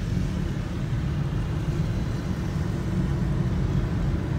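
Steady low rumble of a car on the move, heard from inside the cabin: engine and tyre noise on an open road.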